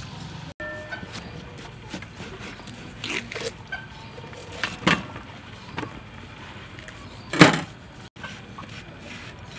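Scattered knocks and scrapes of a knife and a peeled melon against a steel tray as the melon is cut open. The loudest knock comes about three-quarters of the way through.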